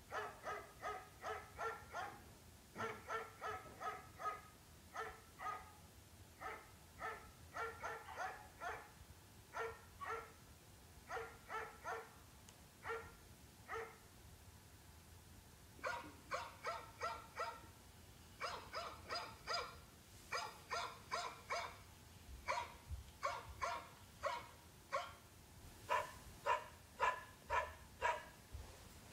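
A dog barking repeatedly in quick runs of short barks, about two to three a second, with a pause of about two seconds about halfway through.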